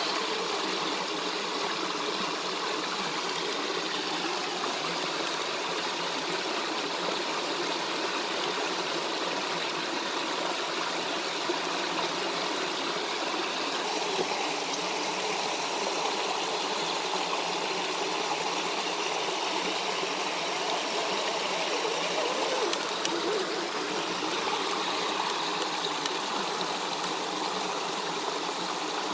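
Mountain stream rushing steadily over a small rocky cascade.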